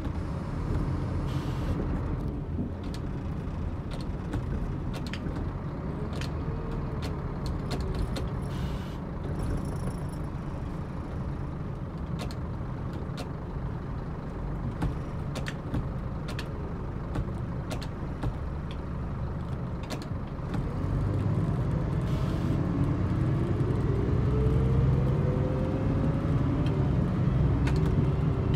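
Scania K114EB4 coach's diesel engine and drivetrain heard from inside the cabin while under way, with interior fittings rattling and clicking. About twenty seconds in it pulls harder and gets louder, its whine rising in pitch.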